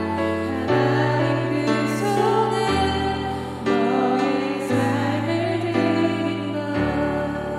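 A solo voice singing a slow Korean worship song over sustained keyboard chords, the bass and harmony changing about once a second.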